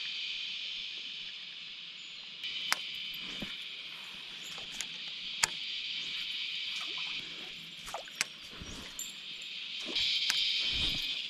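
Cicadas singing in a steady, high-pitched chorus that swells louder about two and a half seconds in and again near the end, with a few sharp clicks scattered through it.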